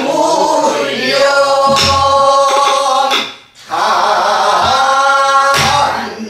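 A man and a woman singing a pansori passage together, unaccompanied, in long held and bending notes, with a short break for breath about halfway through.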